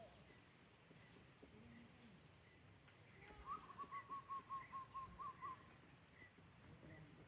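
A bird calling faintly: a quick run of about ten short hooting notes over roughly two seconds, in the middle of the stretch.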